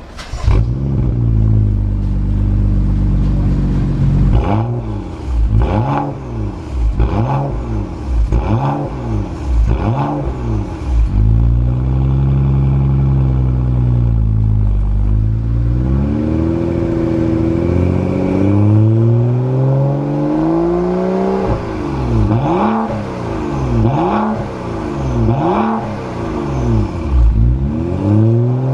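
BMW 640i Gran Coupe's turbocharged straight-six running through a HE'ART aftermarket exhaust, heard at the tailpipes. It idles, then is revved in a run of about six quick throttle blips, held at a higher rev for several seconds, and blipped about five more times before it drops back toward idle.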